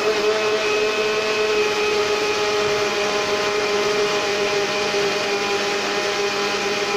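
Electric countertop blender running steadily at speed, blending chopped mango with water and sugar into juice: a steady motor whine over the whir of the liquid.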